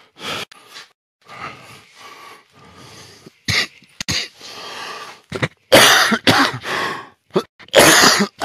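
A person coughing repeatedly: a run of separate coughs, loudest in the second half.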